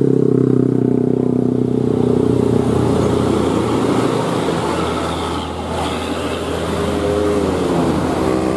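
A motor vehicle's engine running, with an even hum that fades after about three seconds into rougher, noisier running.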